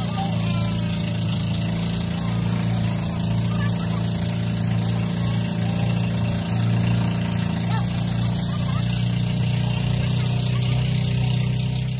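Engine of a motorised outrigger boat running steadily under way, with an even hiss of wind and water.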